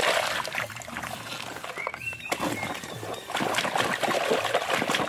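Wet sand and gravel being scraped by hand off a plastic toy dump truck and dropping into shallow muddy water, with trickling and splashing. From about three seconds in, water is splashed against the truck in quick repeated strokes.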